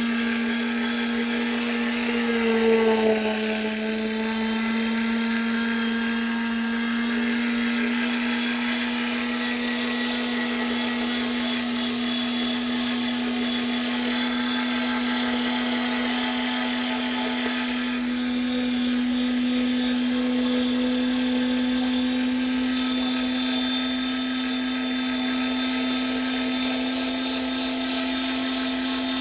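LEM electric meat grinder's motor running steadily in grind mode, grinding chunks of steak: a steady electric hum that dips slightly in pitch about two and a half seconds in.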